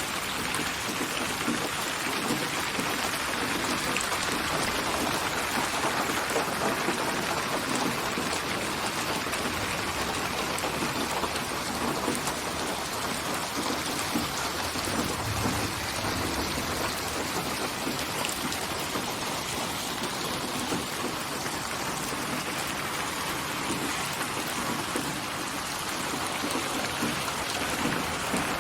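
Steady rain falling, a dense even hiss of drops on a surface, with a brief low rumble about halfway through.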